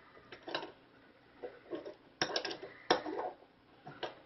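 Plastic transformable toy figures being handled and set down, giving light clicks and taps, with a cluster of small knocks about two to three seconds in.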